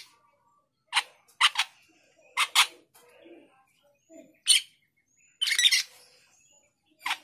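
Male Asian glossy starling calling: short, shrill, harsh notes, several in quick pairs, and a longer harsh call about five and a half seconds in. It is calling to challenge a rival male.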